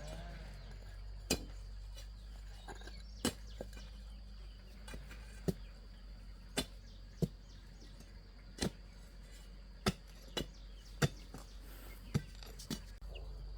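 A hand digging tool striking into the ground again and again, roughly once a second at an uneven pace, as a hole is dug by hand.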